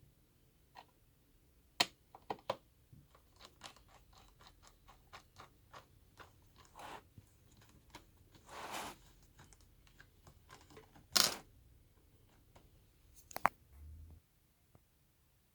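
Hands handling small laptop hardware: a run of small clicks and taps, with a short scrape about nine seconds in and a louder one about eleven seconds in.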